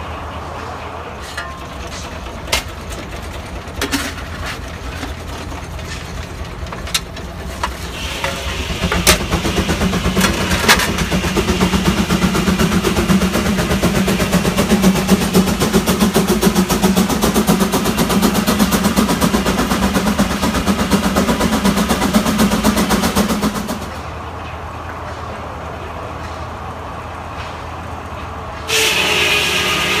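Steam traction engine driving a belt-powered sawmill, the machinery running steadily with a few sharp clanks early on. About eight seconds in it grows louder, with a rapid even beat, for about fifteen seconds, drops off suddenly, and is loud again near the end.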